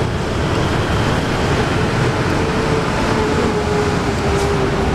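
Loud, steady rumble of passing vehicles, with a faint engine tone that sinks slowly in pitch.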